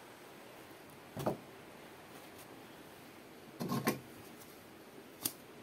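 A few separate knocks and clicks over a steady low hiss: one about a second in, a quick double knock past the middle, and a sharp click near the end.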